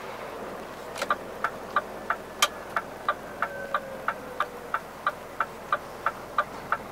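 Scania truck's turn-signal indicator ticking in the cab, an even tick about three times a second that starts about a second in, over the low running noise of the truck.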